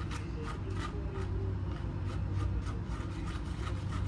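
Wooden spoon rubbing flour and cocoa powder through a fine metal mesh sieve: a rhythmic scraping, about three strokes a second.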